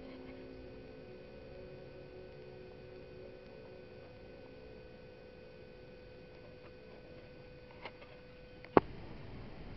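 A faint steady hum with a held tone that slowly fades, then a small click and, about a second later, one sharp, loud click.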